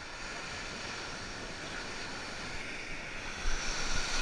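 Ocean surf: a wave rolling in and breaking over a waterproof action camera held at water level, a steady rushing wash that builds and turns much louder and heavier in the last second as the whitewater reaches the camera.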